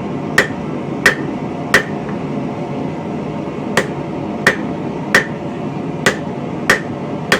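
Blacksmith's hammer striking hot steel on an anvil, setting down the start of a stem in a taper. Three blows about two-thirds of a second apart, a pause of about two seconds, then six more, each with a short ring.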